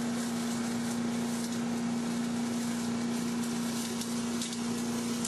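Self-propelled leaf vacuum running steadily: its small petrol engine and suction fan give a constant hum over a hiss. Faint ticking comes from leaves and debris being drawn in.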